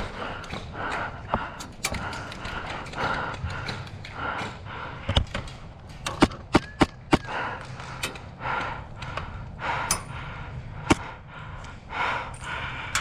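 Steady rhythmic steps and gear scuffing of a player moving across the field. Sharp airsoft gun shots crack out a few times, with a quick string of four about halfway through.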